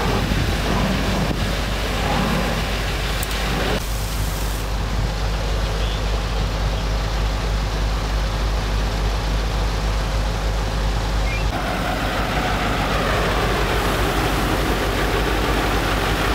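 Fire engine's diesel engine running steadily with a low hum, powering the pump that feeds the hoses. The sound shifts abruptly about four and eleven seconds in.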